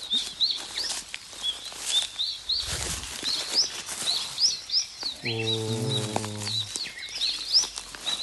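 Many small birds chirping, with short, quick high calls overlapping throughout. About five seconds in, a steady low drone with a stack of overtones sounds for about a second and a half.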